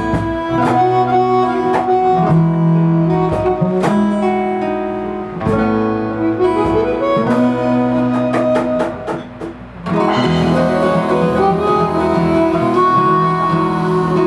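Live acoustic music with no singing: an instrumental passage of ringing notes with sharp attacks. It thins out about nine and a half seconds in, then comes back fuller.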